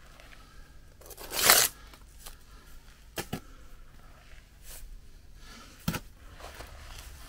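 Steel bricklaying trowel scraping and spreading mortar on concrete blocks: one loud scrape about a second in, then a few sharp taps and lighter scrapes.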